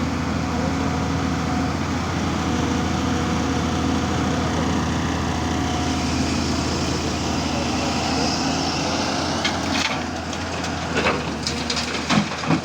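Hydraulic excavator's diesel engine running steadily, with a series of sharp knocks and clanks over the last two seconds or so.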